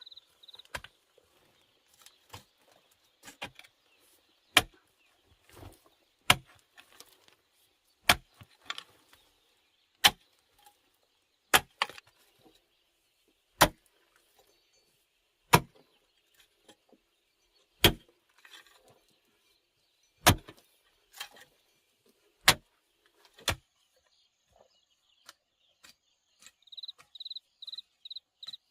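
Wood being chopped with a blade: sharp single chops about every two seconds, with lighter knocks between. Insects chirp faintly in the background, with a brief run of pulsed chirps near the end.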